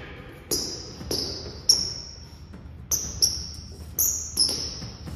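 Basketball dribbled on a hardwood gym floor: about seven bounces at an uneven pace, each followed by a brief high ring.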